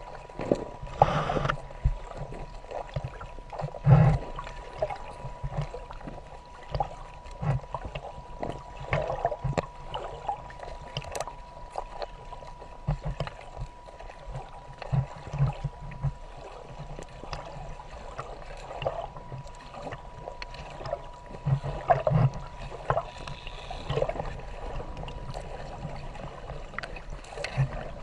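Water sloshing and splashing with irregular knocks and a steady high-pitched whine.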